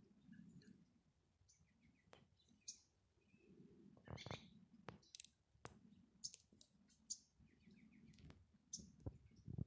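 Very faint outdoor ambience: scattered short, high bird chirps, with a few sharp clicks from about four seconds on.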